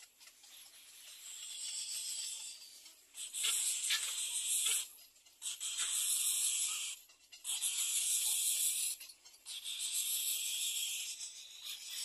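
Insects buzzing high and shrill in repeated runs of about a second and a half, each broken off by a short pause, about five times over.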